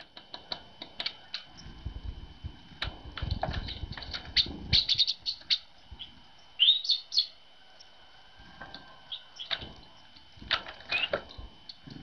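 Tits calling: a rapid scatter of short, high chirps and sharp call notes, with a few down-slurred notes about seven seconds in. A low rumble runs under the calls between about two and five seconds in.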